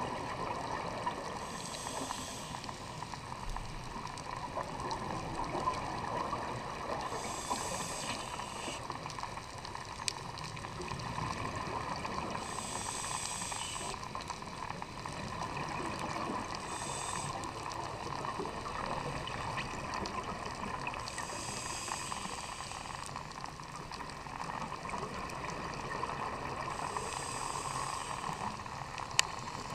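Scuba diver breathing on a regulator underwater: six bursts of exhaled bubbles about every five seconds over a steady underwater hiss. A sharp click sounds once near the end.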